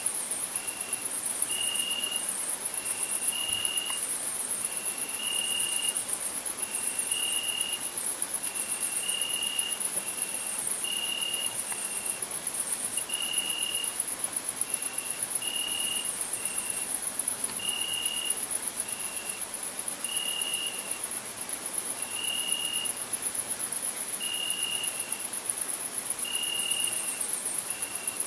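A steady, high-pitched, fast-pulsing chorus of crickets chirring through the night. Over it, a short piping note repeats about once a second, alternately stronger and weaker.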